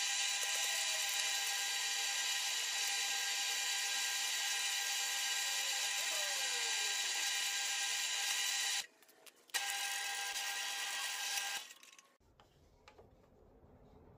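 Benchtop drill press running with a steady high whine while drilling holes in wood. It cuts out briefly about nine seconds in, comes back, and stops about twelve seconds in.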